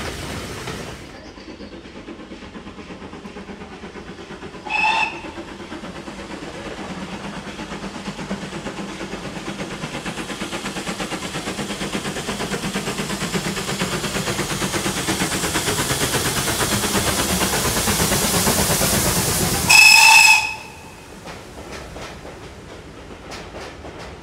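Steam locomotive chuffing as it climbs toward and under a bridge, its exhaust beats growing steadily louder. It gives a short whistle about five seconds in and a longer, louder one near the end, then the sound drops away sharply as the engine passes beneath.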